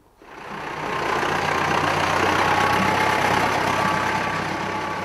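Farm tractor's engine running as the tractor drives close past, swelling in over the first second and then slowly fading.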